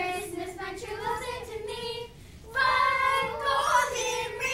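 A small group of children singing a Christmas carol together, unaccompanied; after a brief breath about two seconds in, the singing comes back louder.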